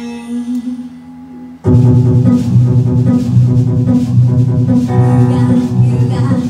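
Woman singing a barrelhouse-style song over a music accompaniment. The accompaniment is soft and sparse at first, then the full band with drums comes in suddenly, loud, a second and a half in.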